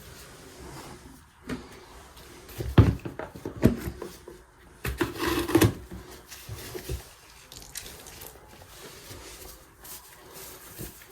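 Hand-work handling noise: a few sharp knocks and clicks, then a brief scraping rub about five seconds in, with faint rubbing after.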